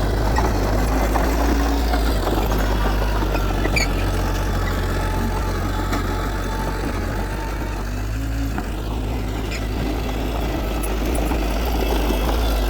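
Heavy diesel earthmoving machinery running steadily, a constant low engine rumble.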